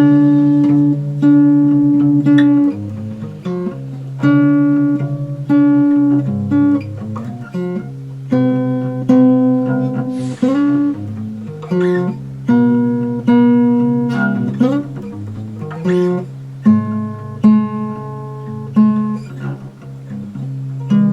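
Instrumental passage of a song between sung verses. Plucked string chords are struck every second or so and left to ring, with a couple of notes sliding upward and a brief scraping swish about ten seconds in.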